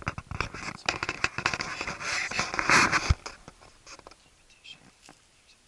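Close rustling and scratching of hands working gear and clothing, dense and loud for about three seconds and ending in a sharp knock, then only a few faint scratches.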